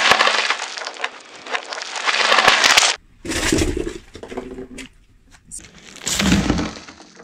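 Car tyre crushing a bread roll wrapped in plastic film: a dense crackling crunch for about three seconds that cuts off suddenly. Two shorter, softer crunching noises follow later.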